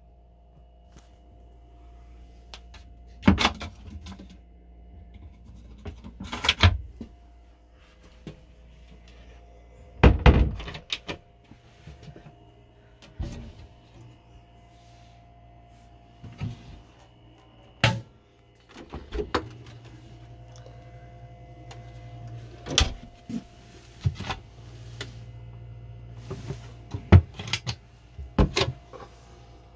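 Campervan cupboard, oven and fridge doors and fittings being opened and closed by hand: about a dozen knocks and clicks a few seconds apart, over a faint steady hum.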